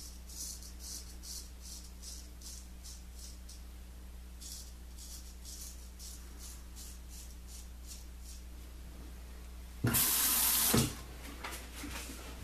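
Razor blade scraping through lathered stubble on the neck in quick short strokes. About ten seconds in, a bathroom tap gushes for about a second.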